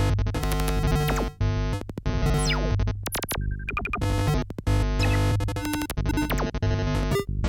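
Oscilloscope music: harsh, buzzy synthesized tones over a heavy bass, cutting abruptly from one sound to the next, with falling pitch sweeps and brief dropouts. The audio is made to draw shapes on an oscilloscope.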